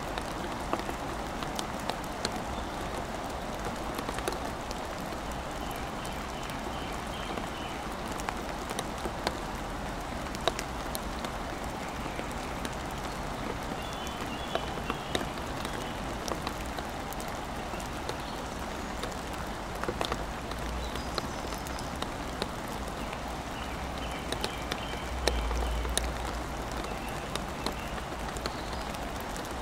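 Steady rain, heard from inside a wooden play tunnel, with many individual drops tapping sharply against the wood and wood chips.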